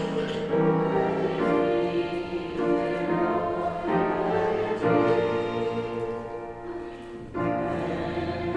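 A congregation singing a hymn with instrumental accompaniment, sustained sung notes and chords changing about once a second, with a short drop in loudness near the end, as between lines.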